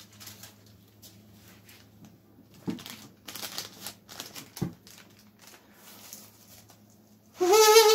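A strip of paper crinkling and rustling as it is handled, with two soft knocks. About seven seconds in, a loud, steady, reedy buzzing hum starts: a person humming through paper held against the lips, kazoo-style, imitating a refrigerator's hum.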